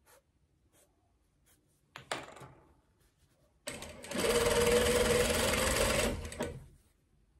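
Industrial flatbed sewing machine running and stitching a short seam in dress fabric for about two and a half seconds, starting a little past halfway, with a steady hum under the stitching. Before it, a brief rustle of the fabric being handled.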